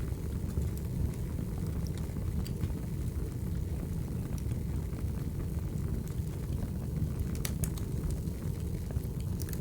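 Wood fire burning with a steady low rumble and scattered sharp crackles and pops, a few louder pops about seven and a half seconds in.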